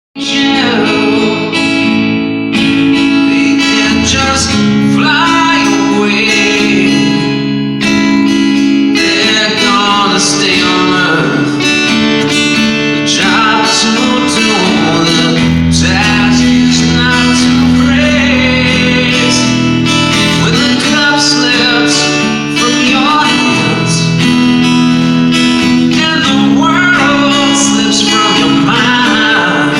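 A man singing a rock ballad to strummed guitar chords, played live at a soundcheck.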